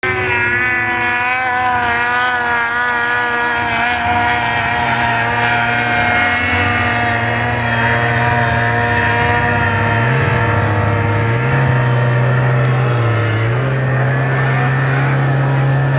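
Snowmobile engines running across a slope, their pitch rising and falling as the riders work the throttle. A low hum steps up and down between two pitches in the second half.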